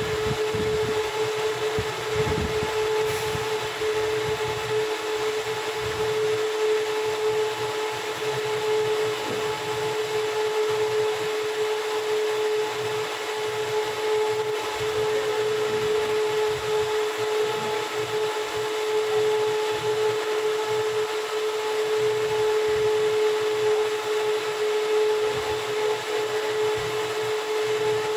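A motor running steadily, a constant whir with a strong, even hum.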